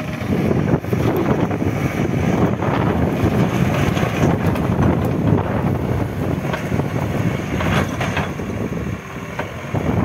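Diesel engine of an Escorts backhoe loader running loud and steady as the machine works, with scattered short clicks and knocks over it. It drops briefly quieter about nine seconds in.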